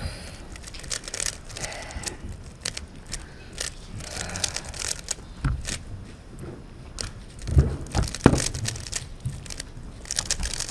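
Scattered light clicks and rustles of handling on a table. About eight seconds in come a few louder thumps as a cardboard cover box is lifted off a Rubik's cube and set down, and the cube is picked up.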